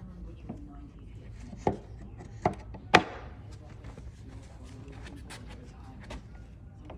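Bed-frame panels and fittings being handled during assembly: scattered light clicks and taps, with three sharp knocks between about one and a half and three seconds in, the last the loudest.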